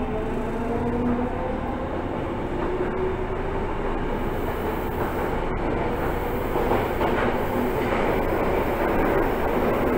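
Yokohama Blue Line subway train running, heard from inside the car: the motor whine rises in pitch over the first few seconds as the train gathers speed, and the wheel-on-rail noise grows louder after that.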